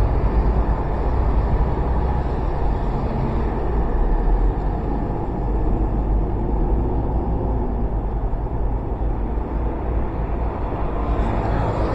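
Honda PCX125 single-cylinder scooter being ridden slowly: steady engine and road noise, with a low wind rumble on the microphone.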